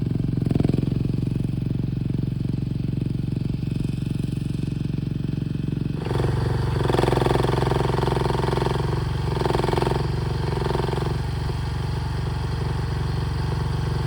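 NM-E10 mini excavator's engine running steadily. About six seconds in the sound changes, and a higher tone comes and goes in a few short spells.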